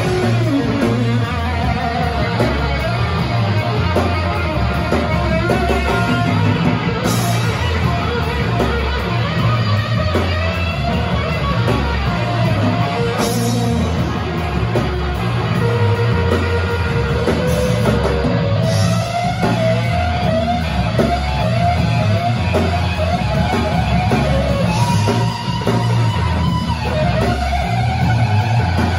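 Live rock band playing loud: distorted electric guitars over bass guitar and drums. Wavering guitar lines run over a heavy repeating bass pattern, with crash cymbals every few seconds.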